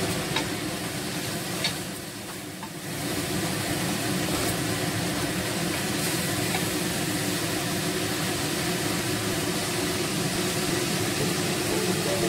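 Chopped onions sizzling steadily in hot oil in a stainless steel pan while being stirred with a wooden spoon; the sizzle dips briefly about two seconds in.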